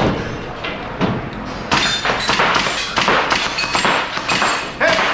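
Airsoft rifle firing a rapid string of single shots, about three a second, starting a little under two seconds in, after a couple of scattered knocks.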